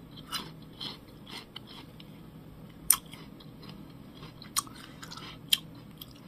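Mouth chewing crisp raw Korean (Naju) pear close to the microphone, with scattered crunches, the sharpest about three seconds in.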